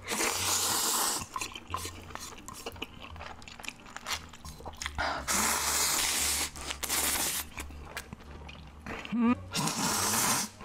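Close-up eating sounds: three long, loud slurps of noodles and liquid from a bowl, at the start, in the middle and near the end, with wet chewing and mouth clicks between them.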